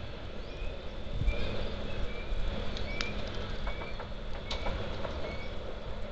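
A small bird chirping in short repeated notes, about two a second, over a low rumble, with a steady low hum coming in about a second in and two sharp clicks in the middle.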